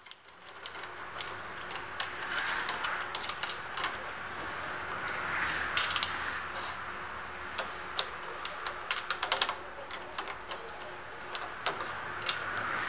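Irregular small metal clicks and taps as a boom's clamshell clamp and upper bracket are fitted and shifted by hand on a chrome wakeboard-tower tube, with soft rubbing in between.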